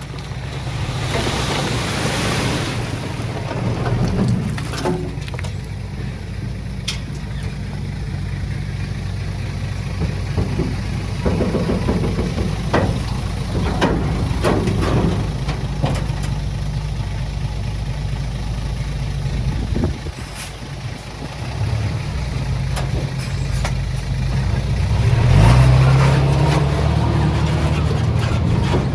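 Diesel engine of a small Komatsu D20A bulldozer running steadily under work, with scattered knocks and clanks of tracks and stone. There is a brief hiss near the start, and the engine grows louder near the end.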